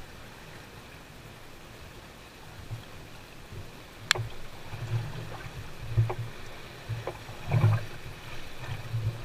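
Choppy waves slapping and thudding irregularly against the hull of a bass boat, over a steady wash of water. There is a single sharp knock about four seconds in.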